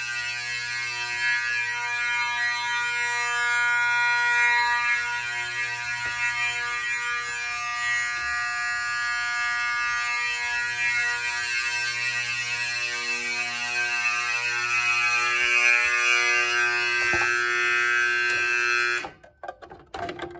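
Several mechanical fire alarm horns blaring together on continuous, a steady, very loud harsh buzzing tone that cuts off abruptly about nineteen seconds in. A few short knocks follow.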